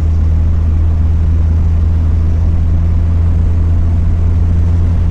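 Mazda Miata's four-cylinder engine droning steadily at a constant cruising speed, with road noise, and no change in pitch.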